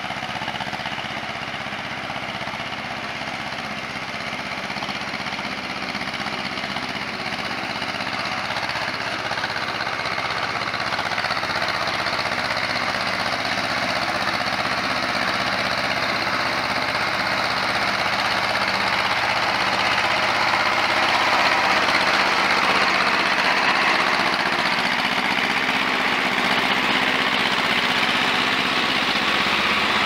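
Farm tractor's diesel engine running steadily as it pulls a harrow through a flooded paddy field. It grows louder over roughly the first twenty seconds, then holds.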